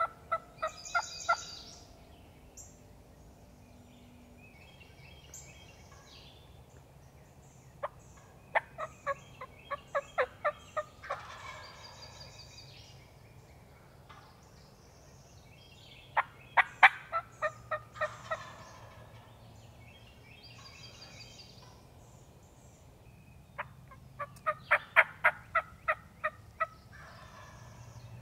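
Wild turkey tom gobbling over and over: three full gobbles about seven or eight seconds apart, each a rapid rolling rattle lasting two to three seconds.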